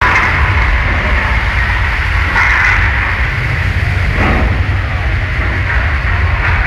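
Loud, steady deep rumble of a theme-park earthquake simulation, with noisy crashing over it as the set collapses and two louder surges at about two and a half and four seconds in.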